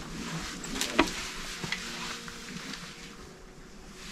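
Quiet room hiss with a few light knocks about a second in, like footsteps and handling of a handheld camera while walking through a room.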